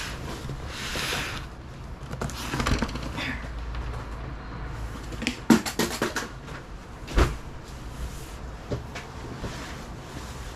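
Handling noise as fabric and packaging are moved and set aside: rustling, with a quick cluster of knocks about five and a half seconds in and a single louder knock about seven seconds in.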